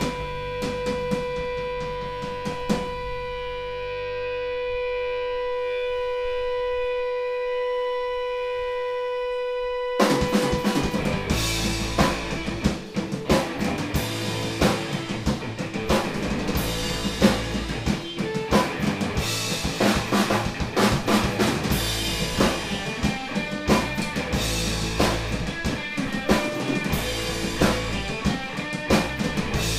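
Instrumental rock band playing live: a single guitar tone is held and rings steadily with a few drum hits at first, then about ten seconds in the Pearl drum kit and electric guitars come in together at full volume.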